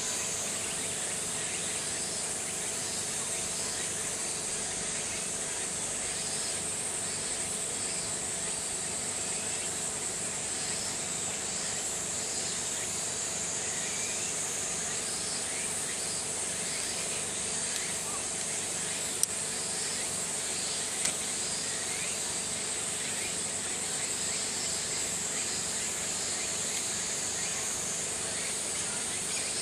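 A steady, high, unbroken chorus of summer cicadas buzzing, over a faint steady hum. A single sharp click comes about two-thirds of the way through.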